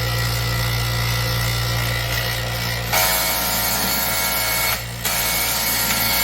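8-inch mechanical straight-knife cloth cutting machine running with a steady motor hum. About three seconds in, its built-in knife sharpener comes down on the blade and grinds with a loud hiss, stopping for a moment and then grinding again.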